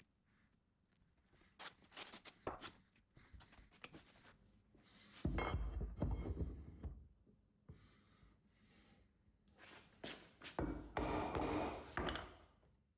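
A few sharp knocks, then two short scraping, rubbing noises about five and eleven seconds in: wood and hand tools being handled and worked on a workbench.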